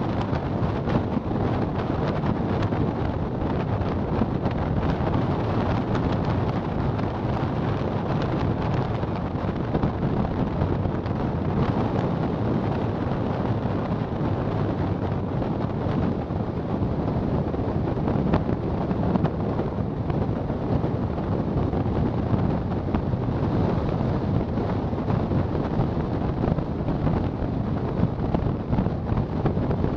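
Wind rushing over the microphone together with the steady road noise of a car driving at about 47–49 km/h, unbroken throughout.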